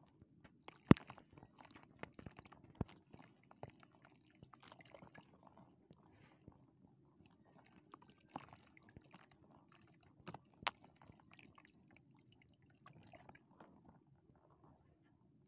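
Wet sandy lumps crushed and crumbled between hands, a busy run of grainy crunches and small crackles, with a sharp loud click about a second in and another about two-thirds through.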